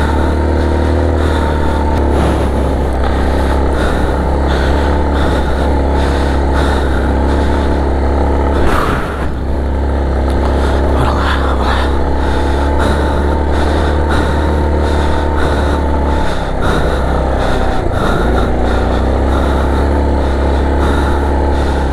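Motorcycle engine running at a steady speed while riding, a deep constant rumble with steady engine tones above it. There is one sharp knock about nine seconds in, and the rumble briefly eases around seventeen seconds.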